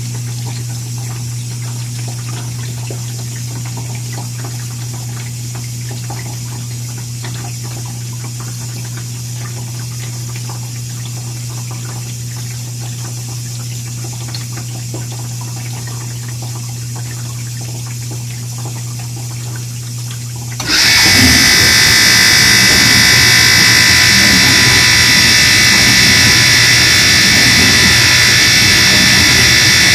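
Moffat dishwasher running with a steady low hum; about two-thirds of the way through, a much louder, high-pitched buzz cuts in suddenly and then holds steady. The buzz is the unexplained buzzing noise the owner is asking about.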